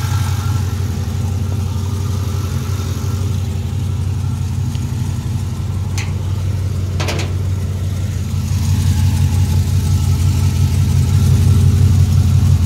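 V8 engine with long-tube headers and a stainless exhaust idling steadily, with a low hum that grows louder in the second half as the microphone nears the exhaust under the truck. A couple of brief clicks sound in the middle.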